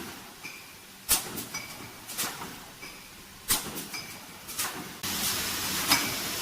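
Automatic rotary screen printing machine running: sharp mechanical clacks come about once a second, each followed by a brief ringing tone, as the servo indexing and printing stations cycle. About five seconds in, a steady hiss starts abruptly.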